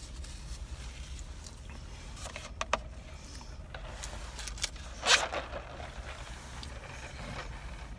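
Close-up eating sounds in a car cabin: a man chewing a fast-food burger, with a few sharp clicks between two and three seconds in and one loud paper-like rustle about five seconds in, over a steady low hum.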